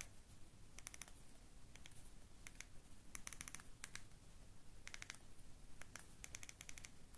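Faint clicks of a CAT B40 phone's rubbery keypad buttons, pressed in several quick runs while multi-tap typing a text message. The key tones are turned off, so there are no beeps.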